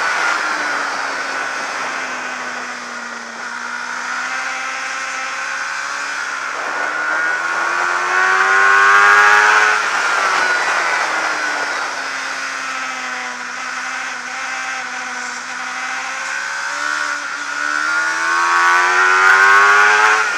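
Suzuki GSX-R600 inline-four race engine heard from an onboard camera on the bike, with wind rushing past. The engine note falls for the first few seconds, then climbs hard twice to a peak, about nine seconds in and near the end, with short breaks in the rising pitch where the rider changes gear.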